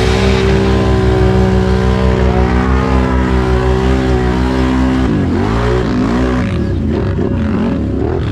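Can-Am Renegade X-MR 1000R ATV's V-twin engine held at high, steady revs as the wheels spin through deep mud. About five seconds in, the revs drop and climb again a few times.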